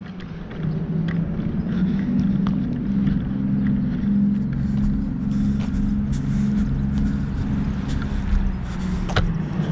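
Motor vehicle engine running at low speed, a steady low drone, with a few faint clicks over it.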